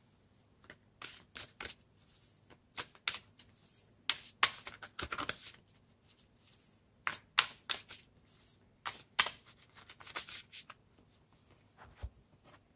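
A deck of oracle cards being leafed through by hand: irregular clusters of soft card flicks and slides as cards are pushed past one another, with a soft knock near the end.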